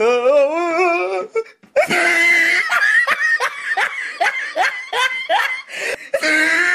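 Hearty laughter: a wavering, warbling laugh for about the first second, then after a brief break a run of rapid 'ha-ha' pulses, about three a second, and a drawn-out laugh near the end.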